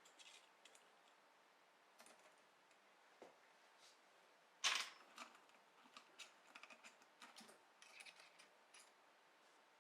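Faint, scattered metallic clicks and taps with one sharper click about halfway through: hand work on the shaper's table lock while the table is unlocked and indexed to the next gear tooth gap.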